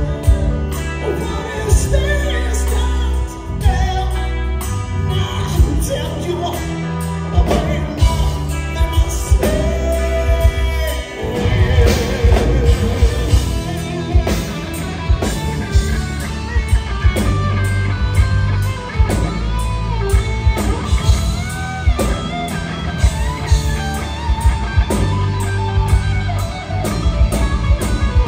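A heavy metal band playing live: electric guitars, bass guitar and drums with a steady beat, and lead vocals singing over them.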